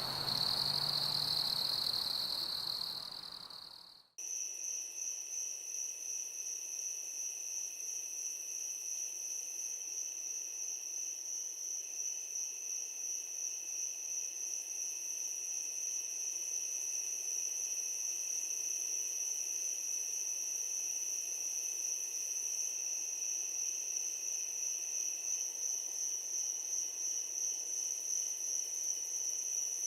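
Crickets chirring in a steady high trill. One recording fades out about four seconds in, and a different, higher-pitched, finely pulsing cricket chorus starts straight after.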